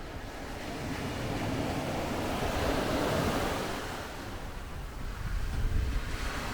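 Sea surf washing onto the beach, swelling to a peak about three seconds in, easing, then building again near the end, with wind rumbling on the microphone.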